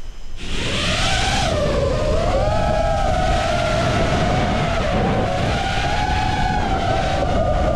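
FPV racing quadcopter's brushless motors and propellers spinning up sharply for takeoff, then a steady, high whine that wavers up and down in pitch with the throttle, over a low rumble.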